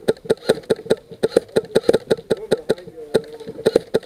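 Airsoft electric rifles firing a steady string of rapid semi-automatic shots, about five sharp cracks a second.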